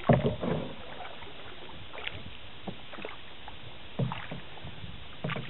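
Canoe paddle strokes: the paddle dips and splashes into the water a few times, the loudest strokes at the very start, over a steady background hiss.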